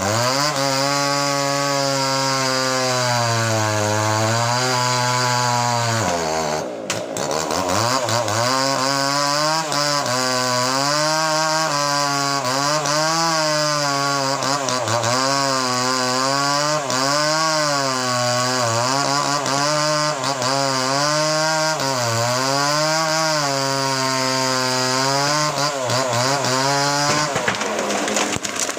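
Small two-stroke chainsaw cutting through a large log under load. Its engine pitch rises and sags over and over as the chain bites and recovers, dips briefly once about a quarter of the way in, and drops away near the end.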